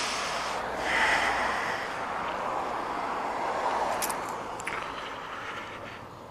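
A car driving past, its sound swelling and then fading after about four seconds, over the low idle of the Aprilia RS125's single-cylinder two-stroke engine.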